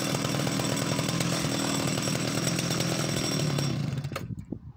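Danarm 71SS vintage chainsaw at full throttle, sawing through a log to cut off a round. The engine sound drops away suddenly near the end as the cut finishes and the saw is set down.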